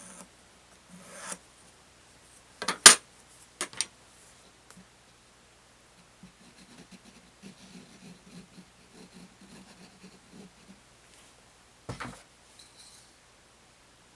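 Hand work on a small wooden piece: a few sharp knocks, the loudest about three seconds in and another near the end, with several seconds of light rubbing or filing in between.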